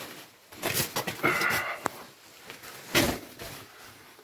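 Knocks, bumps and scrapes of someone clambering onto a ladder, with several short knocks and the loudest one about three seconds in.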